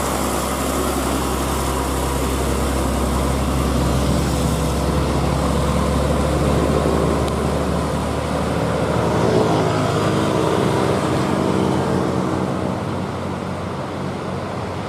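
Old diesel truck engine running. About nine to ten seconds in, its deep low drone drops away and the engine note shifts.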